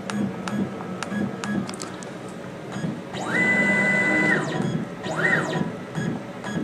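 Z-axis stepper motor of an iTECH Q6090T desktop CNC router jogging the spindle down: a whine rises in pitch, holds steady for about a second and falls away, then comes back as a short rise and fall, over faint regular ticking.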